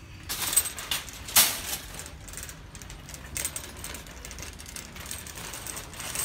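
Empty metal wire shopping cart being pushed over pavement: the wheels roll with a low rumble while the wire basket rattles and clanks irregularly, the sharpest clank about one and a half seconds in.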